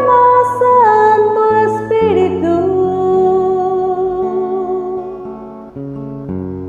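Karaoke backing track of a Spanish-language worship song with strummed acoustic guitar and sustained chords, under a voice holding long sung notes that slide from one pitch to the next and fade out about five seconds in.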